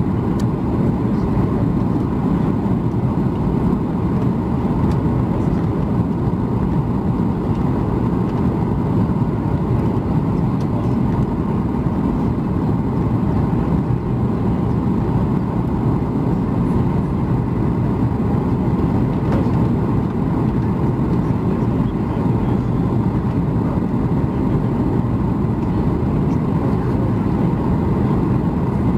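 Steady cabin noise inside a Boeing 737 MAX 8 airliner: a constant low rumble of engines and airflow, with a faint steady hum.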